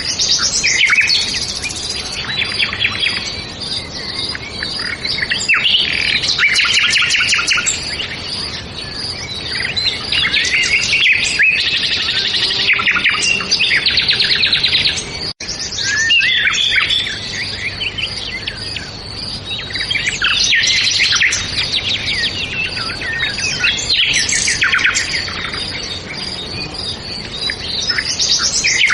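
Several songbirds singing and chirping over one another, with fast trilled phrases and quick note series, over a faint steady background hiss. The audio drops out for an instant about halfway through.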